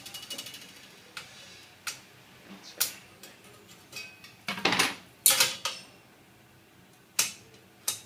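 Metal-on-metal clicks and clatter from a steel rule and a square being handled, set down and laid against a slotted steel cable tray, loudest about five seconds in, with a few lighter taps around it.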